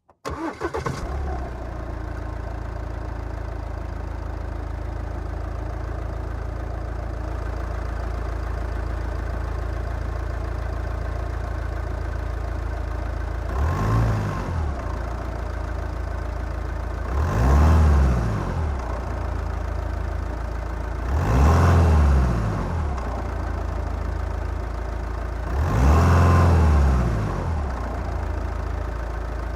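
Audi A4 diesel engine starting right at the beginning and settling into a steady idle. It is then blipped four times, each rev rising and falling within a second or two; the last three revs are louder than the first.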